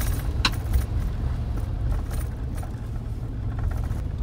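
Steady low road and tyre rumble inside the cab of a Ford Super Duty pickup driving on a wet dirt road. A few short, light clicks or rattles sound over it, the clearest about half a second in.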